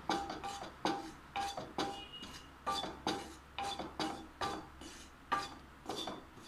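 Wooden spatula scraping and knocking a black pan about twice a second as spice powders are stirred in it dry, each stroke leaving a brief ring from the pan. The coriander, chilli and turmeric powders are being dry-roasted to take away their raw smell.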